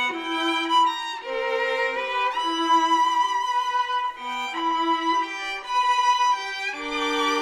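Violin music: a melody of held notes following one another without a break.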